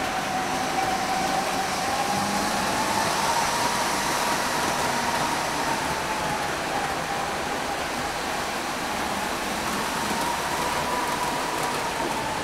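Model railway locomotive's electric motor whining as it hauls a long container train, the whine's pitch slowly rising and falling twice as the train's speed changes, over a steady hiss of wheels running on the track.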